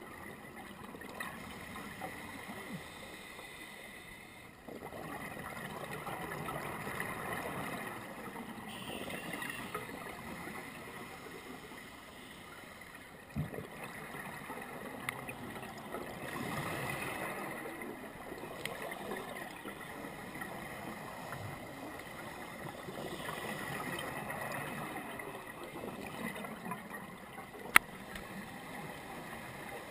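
Scuba diver's regulator breathing heard underwater: exhaled bubbles gurgling in swells every several seconds, with a couple of sharp clicks, one near the end.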